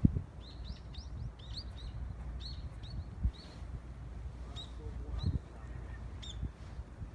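A small bird chirping in quick runs of short, high notes, then a few single chirps later, over a steady low rumble of wind on the microphone and a few bumps from handling the phone.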